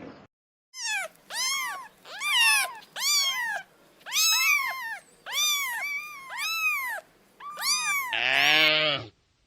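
A cat meowing over and over, about nine high, rising-and-falling meows. Near the end there is one lower, rougher call that cuts off suddenly.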